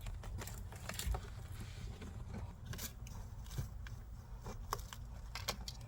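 Scattered small clicks and scrapes as a door-sill wiring cable is pushed through plastic interior trim, over a low steady hum.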